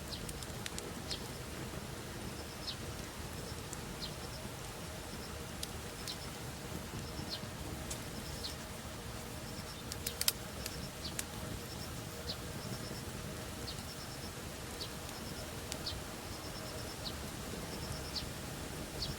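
Wood campfire crackling, with scattered sharp pops and a brief cluster of louder pops about ten seconds in. Behind it, a high chirping call repeats in quick little groups about once a second.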